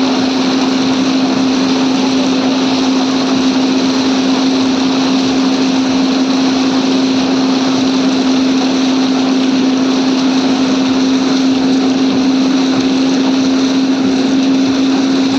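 A machine's motor running steadily at one speed, giving a constant loud hum without change.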